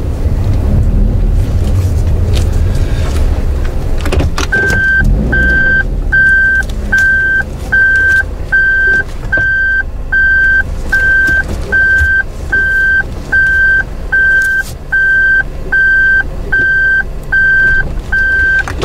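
Small car's engine and tyres rumbling at a crawl, then an in-cabin reversing buzzer beeping evenly, about three beeps every two seconds, from about four and a half seconds in: the car is in reverse.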